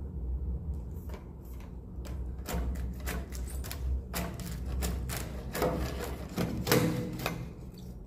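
Pole-mounted net-scoop harvesting tool scraping and clicking against a wooden nest plank as it pries off a swiftlet nest: rapid irregular clicks and scrapes that begin about two and a half seconds in and grow busier.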